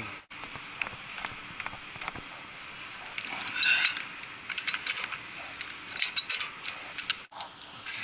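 Pipe wrench clinking against a steel fitting on a cooling-tower gearbox housing: a run of sharp metallic clicks and taps starting about three seconds in, over a steady background hiss.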